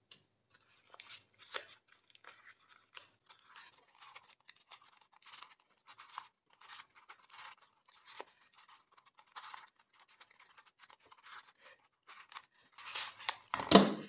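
A magnetic origami paper 2x2 Rubik's cube being turned fast in a speedsolve, giving faint, quick papery clicks and rustles. The turning grows louder just before the end, then a thump as both hands slap the speedcube timer to stop it.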